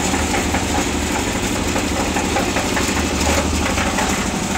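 Concrete mixer's engine running steadily at a constant pitch, turning the mixer drum.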